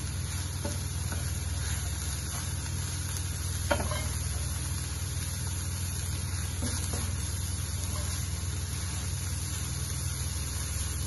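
Minced beef, onions and diced carrot sizzling in a frying pan as they are stirred with a wooden spoon, with a few knocks of the spoon against the pan, the sharpest about a third of the way in.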